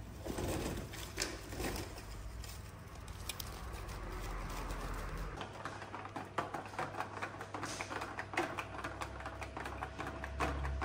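Kitchen clatter: a run of light clicks and knocks, sparse at first and growing into a fast, dense patter from about six seconds in, over a low steady hum.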